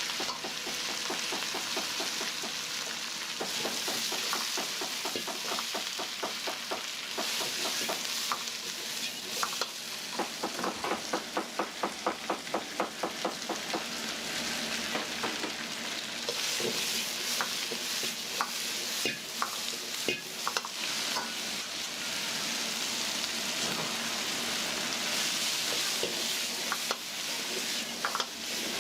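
Food sizzling in a hot wok while a metal ladle stirs and scrapes it. About a third of the way in, the ladle strikes the wok in a fast, even run of clicks, about four a second; scattered knocks follow later.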